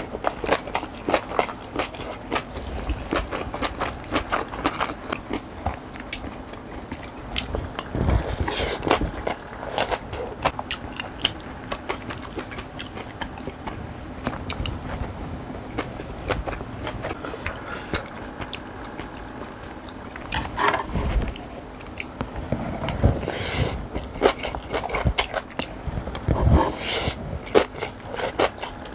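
Close-miked chewing of a mouthful of bibimbap with radish salad: a steady run of quick wet clicks and crunches, with louder bites every few seconds.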